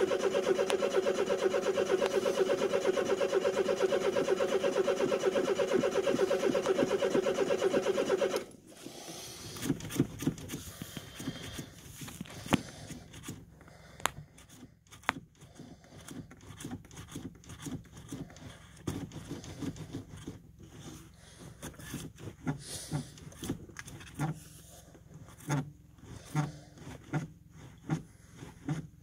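A car engine being cranked over on its starter in a cold start without catching: a steady, fast-pulsing drone that cuts off suddenly about eight seconds in. After that come only faint clicks and knocks.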